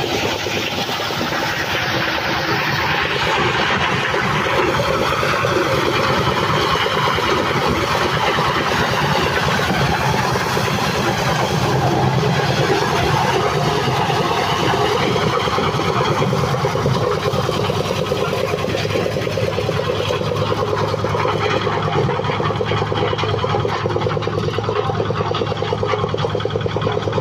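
Engine-driven corn sheller running steadily as maize cobs are fed in and shelled, its small motor giving an even drone.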